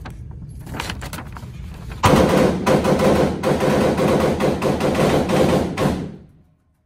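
Motorised target carrier running a paper target downrange: a loud rattling with a steady whine starts about two seconds in and stops shortly before the end.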